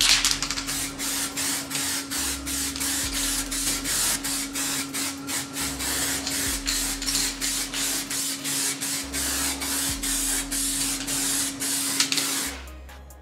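Compressed-air spray hissing steadily with a low hum underneath, pulsing slightly a few times a second, then cutting off shortly before the end.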